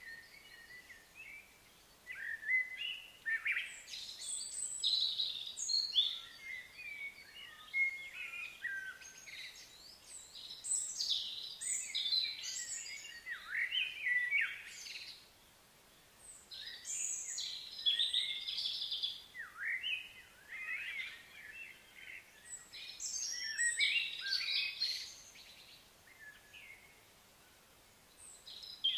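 Several birds chirping and singing in overlapping bouts, with short lulls every few seconds.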